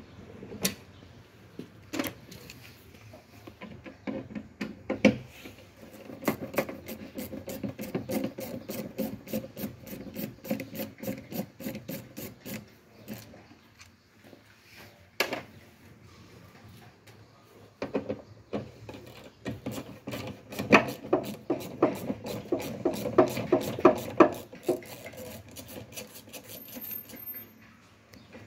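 A hand tool scraping along the top edge of a Cadillac Escalade's liftgate where the third brake light sat. It comes in two spells of quick, rapid strokes, with a few single sharp clicks before and between them.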